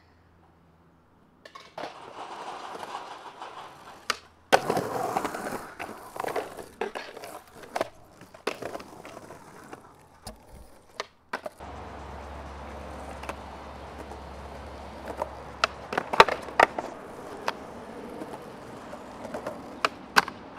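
Skateboard wheels rolling over hard ground, with sharp clacks of the board hitting the ground scattered through. The rolling starts about two seconds in and grows louder a couple of seconds later.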